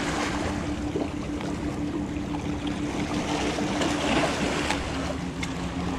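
Sea water washing and splashing against shoreline rocks, a steady rush of water, with a faint low steady hum underneath and a few small clicks.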